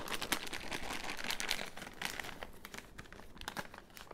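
Clear plastic piping bag crinkling and crackling in the hands as royal icing is spooned into it, densest in the first couple of seconds, then sparser.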